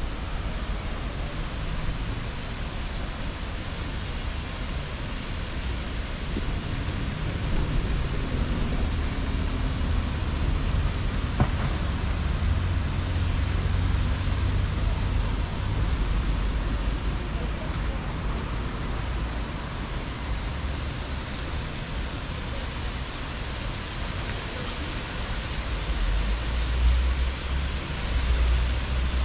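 Steady outdoor city ambience: an even wash of noise with a low rumble that swells now and then, and a single sharp click about eleven seconds in.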